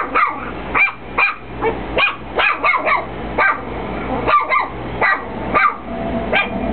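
Chihuahua barking over and over: short, sharp barks in an uneven run of about two a second.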